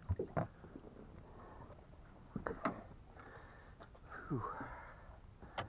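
A few knocks and clunks as a landing net holding a striped bass is swung over the side and set down in an aluminium fishing boat, with a sharp exhale near the end.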